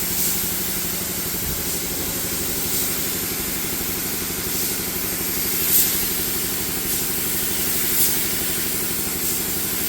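Spray-painting: a paint spray gun hissing over a steadily running compressor motor, with a few short, louder spurts of spray.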